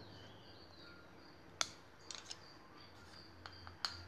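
A few faint, sharp clicks and light taps, one about a second and a half in and a quick cluster just after, with a faint high chirping in the background.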